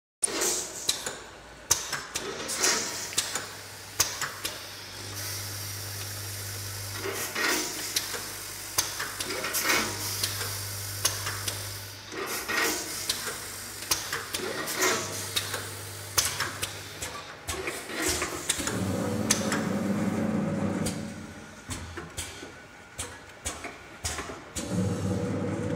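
Packaging-line machinery running: a linear weigher, can filler and can seaming machine clicking and clattering with frequent sharp knocks of plastic cans and mechanisms. A low motor hum comes on in spells of about two seconds, and a louder steady machine sound runs for a couple of seconds later on and again near the end.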